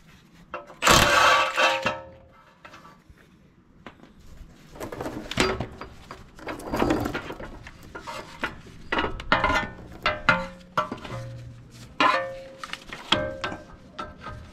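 Hand-tool work on a truck's lower ball joint and steering knuckle: irregular metal knocks and clinks, some ringing briefly. A louder noisy burst lasting about a second comes about a second in.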